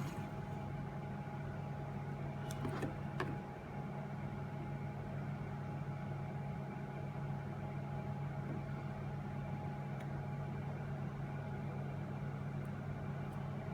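Steady low hum, with a few light clicks about two and a half to three seconds in.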